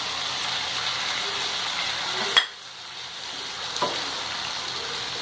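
Chopped tomatoes sizzling in hot oil in a frying pan as they are stirred in with a spatula. A sharp knock comes about two and a half seconds in, after which the sizzle is suddenly much quieter and slowly builds again; a lighter tap follows about a second later.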